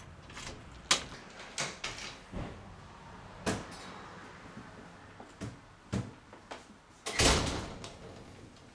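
Interior door being handled: a string of sharp clicks and knocks from the doorknob and latch, then a louder, longer clunk about seven seconds in.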